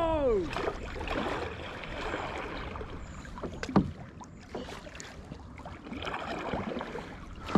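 Kayak being paddled on a river: paddle blades dip and swish through the water on alternating sides, with water lapping at the hull. A single sharp knock comes a little under four seconds in.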